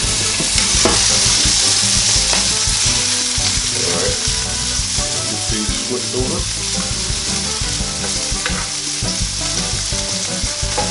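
Sausages and pancakes frying in a NuWave Medley XL electric skillet with the lid off: a loud, steady sizzle. A spatula scrapes and taps lightly a few times as pancakes are turned.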